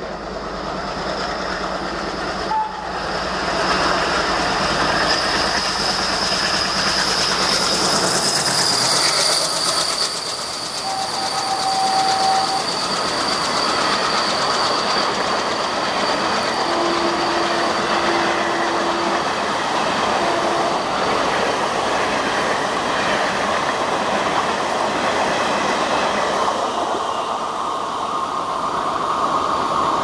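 WDM-3A diesel locomotive's ALCO engine chugging as it rushes through at speed, followed by its string of passenger coaches clattering past over the rail joints. The sound swells a few seconds in and stays loud.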